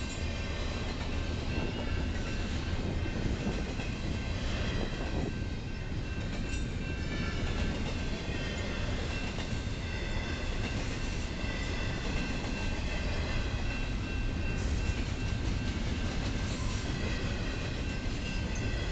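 BNSF double-stack intermodal train's well cars rolling past, a steady rumble of steel wheels on the rails with some clickety-clack. Faint steady high-pitched tones sit over the rumble.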